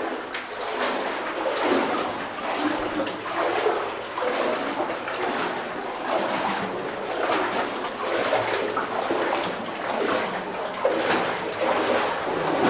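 Boots wading through water, sloshing and splashing with each step.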